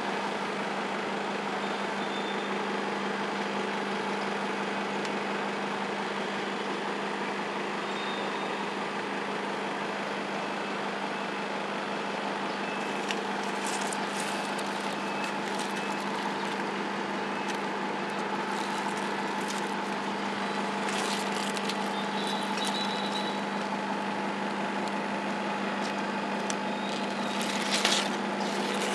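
A steady mechanical hum with a constant low tone and an even background noise. Brief rustles and crackles of plant leaves being handled come a few times from about the middle on, most strongly near the end.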